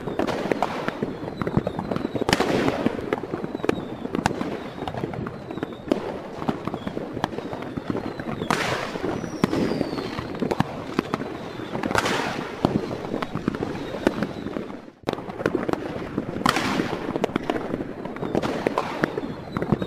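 Fireworks: a dense crackle of many small pops, with a bigger burst every few seconds and a short falling whistle about nine seconds in. The sound drops out for a split second about fifteen seconds in.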